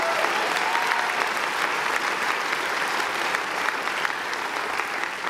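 Audience applauding, with a few cheers in the first second.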